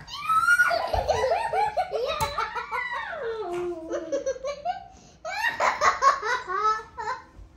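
Young child laughing hard and high-pitched in quick bursts of giggles, with a short break about five seconds in before a second fit of laughter.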